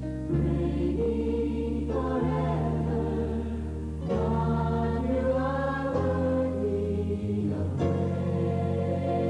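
A choir singing a slow song over held chords, the harmony changing about every two seconds.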